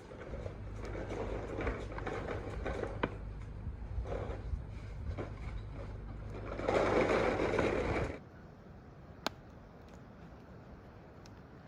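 A small motor-driven machine running steadily with rattling and scraping over it, louder for a moment before it cuts off about eight seconds in; a single sharp click follows.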